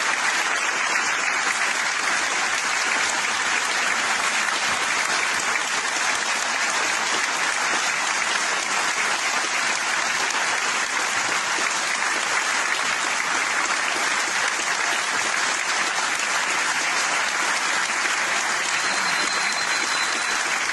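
Large crowd clapping in steady, unbroken applause.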